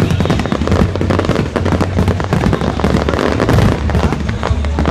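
Fireworks finale: a dense, unbroken barrage of bangs and crackling bursts over a steady low rumble.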